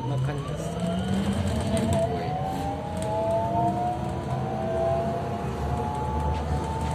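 Bogdan T901 trolleybus's electric traction drive whining as it pulls away and accelerates: several tones rise steadily in pitch and level off near the end, over the low rumble of the ride.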